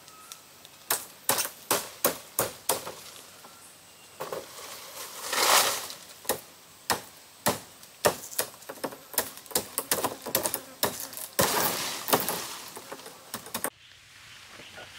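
Repeated sharp chopping strikes, a blade cutting into fan-palm frond stalks at an uneven pace of about one or two a second. Leaves rustle loudly twice, as fronds come loose. The strikes stop suddenly near the end and quieter forest background takes over.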